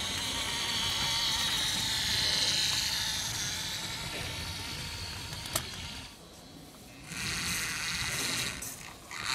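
Whine of a 1:32 Siku Control Fendt 939 RC tractor's small electric drive motor and gears as it pulls two loaded trailers, with a single sharp click about five and a half seconds in. The whine drops away briefly around six seconds in and again near the end.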